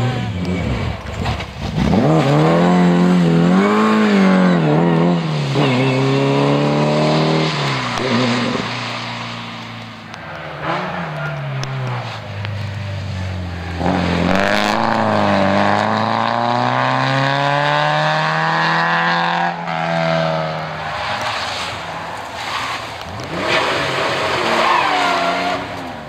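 Historic rally cars driven hard one after another, their engines revving high and rising and falling in pitch through the gear changes. The first car comes in about two seconds in, a second car pulls away in one long climb in pitch from about halfway, and another engine comes in near the end.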